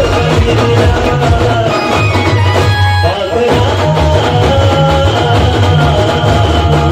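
Banjo-party band music: an amplified banjo plays a melody of long held notes over a heavy, steady drum and bass beat. The music thins briefly about three seconds in.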